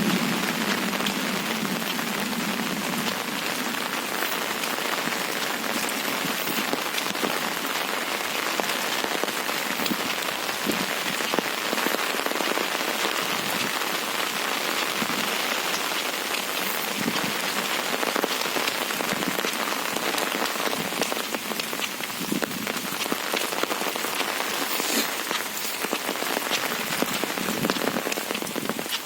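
Steady rain in a windstorm: an even hiss with many fine drop ticks.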